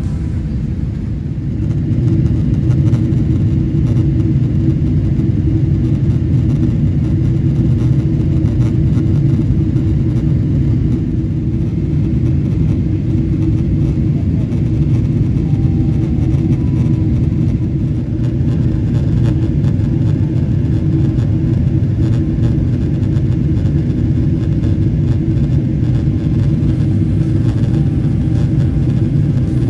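Steady low rumble of a Boeing 777-300's cabin in flight on the descent: engine and airflow noise heard from a window seat, stepping up in loudness about two seconds in and then holding even.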